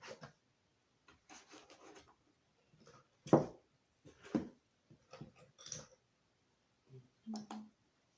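Hand tools being handled and set down on a hard surface: scattered clicks, rustles and knocks, the loudest a sharp knock about three seconds in and another about a second later.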